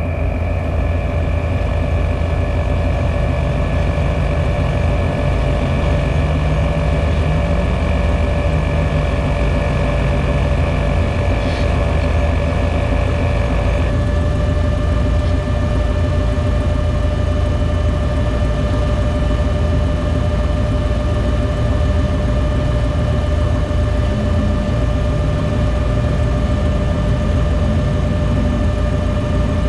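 Off-road vehicle engine running steadily under load, with a steady mechanical whine over a heavy low rumble. About halfway through, the tone changes abruptly.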